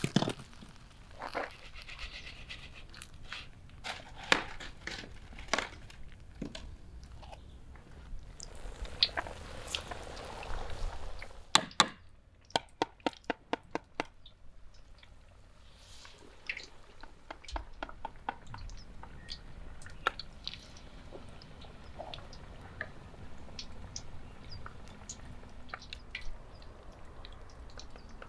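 Food-prep handling sounds: scattered clicks and taps of a utensil against bowls, with a quick run of about five taps a second midway, and a ladle stirring batter in an enamel bowl near the end.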